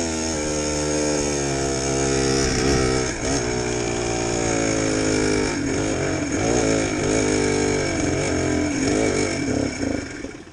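ATV engine coming off high revs, its pitch sliding down as it coasts, then running unevenly with revs surging and sagging before cutting out near the end: the quad's engine dying as it breaks down.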